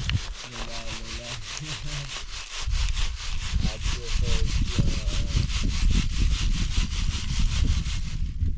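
Flour being sifted through a wooden-rimmed hand sieve shaken back and forth in quick, even strokes, the mesh and rim rubbing with each stroke. The rhythm stops shortly before the end.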